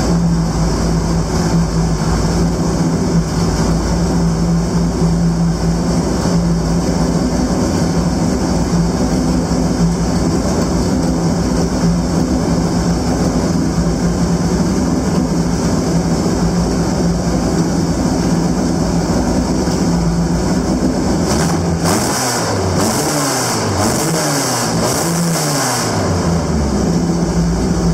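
Formule MTX racing car's carburetted engine, with open intake trumpets, idling steadily just after a basic carburettor setup, then revved several times in quick succession near the end before settling back to idle.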